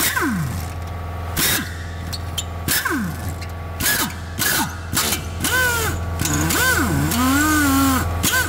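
Combination wrench working the nut on a front upper control arm ball joint, with a few sharp metallic clicks from the tool against the fittings, over a steady low hum. Sliding, wavering pitched tones run in the background.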